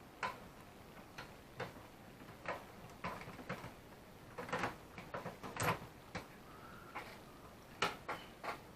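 Irregular clicks and knocks of small plastic and metal parts being handled on a Technics dual cassette deck under repair, with the sharpest click about five and a half seconds in.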